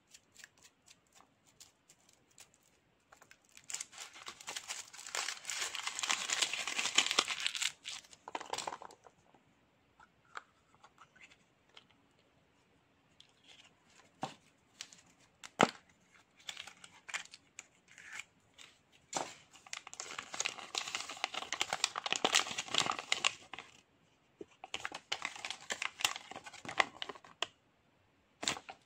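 Foil wrapping of a Kinder Surprise chocolate egg crinkling and tearing as fingers peel it off, in three long bouts, with scattered sharp clicks between them, the loudest about halfway through from the plastic toy capsule. Rustling wrapping and paper as the toy and its leaflet are unpacked.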